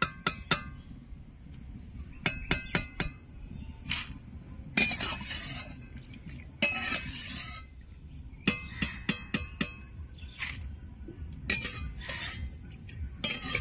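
A metal slotted ladle clinking and tapping against the rim of a kadai in quick clusters of ringing ticks, as fried boondi are scooped out of the oil, with a few short scraping bursts in between.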